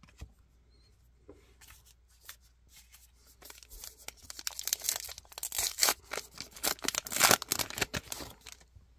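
A pack of 2024 Topps Heritage baseball cards being torn open: the wrapper crinkles and tears with a dense crackle, faint at first and loudest in the second half.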